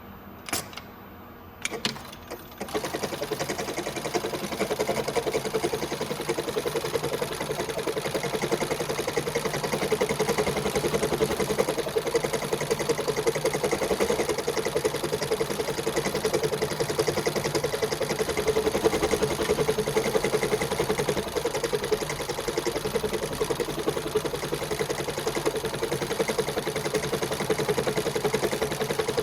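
Mitsubishi PLK-E0504 programmable pattern sewing machine stitching a test pattern at high speed, the needle running in a steady, rapid rattle. A few sharp clicks come just before it starts, about two seconds in.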